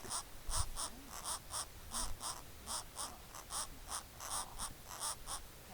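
Woodpecker nestlings begging from the nest: a continuous run of short, evenly repeated calls, about four a second.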